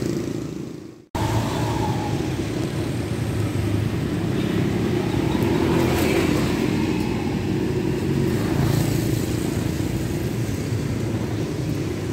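Steady rumble of street traffic, cars and motorcycles passing. The sound fades out briefly about a second in and resumes abruptly.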